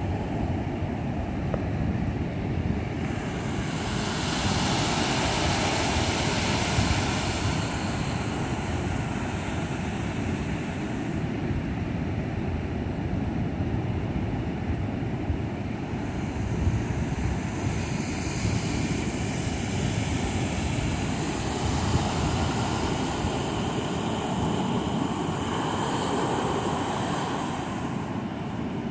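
Ocean surf breaking and foam washing up the sand, with a low rumble of wind on the microphone; the hiss of the wash swells up twice, once early and again in the second half.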